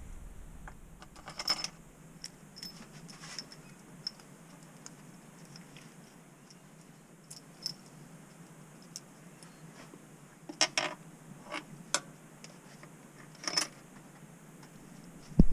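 Widely spaced light metallic clinks and clicks of hand tools and bolts being handled on an engine's intake manifold, with a small cluster of them about two-thirds of the way in.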